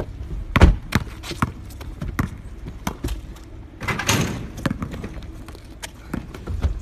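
Scattered sharp thuds of a basketball, the loudest less than a second in, then a longer rattling clatter about four seconds in as the ball is dunked on a driveway hoop, followed by a few lighter knocks.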